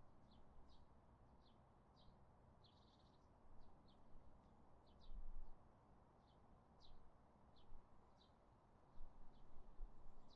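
Small birds chirping: short, high chirps about every half second, over a faint low background rumble, with a couple of brief low rumbles about halfway through and near the end.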